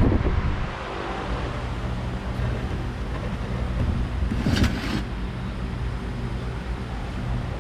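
Steady low machine hum in the shop, with one short crunch about four and a half seconds in as a hand-lever metal shrinker squeezes the sheet-steel panel to pull back its curve.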